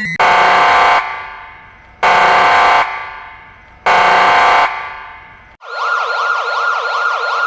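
Emergency alarm: three loud horn-like blasts about two seconds apart, each dying away after it. Then, a little over five seconds in, a siren starts a quick rising-and-falling wail.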